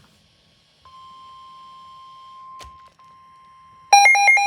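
NOAA weather radio receiver alerting for a new warning: a steady single tone near 1 kHz (the 1050 Hz weather alert tone) starts about a second in. Near the end, a loud rapid beeping alarm alternates quickly between a low and a high pitch.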